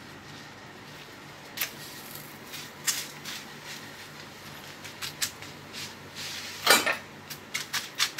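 Light, scattered clicks and taps of metal against an upturned kadai as a rumali roti is laid on it and pressed with a cloth, with one louder clatter about seven seconds in.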